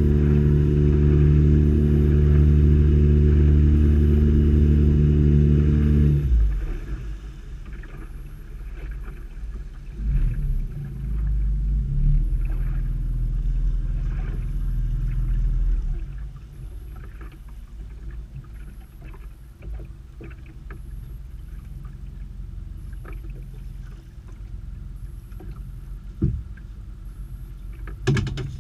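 Small boat's outboard motor running steadily under throttle, then cut back sharply about six seconds in. It picks up a little again for a few seconds before settling to a low idle, with small knocks against the hull and a sharper knock near the end.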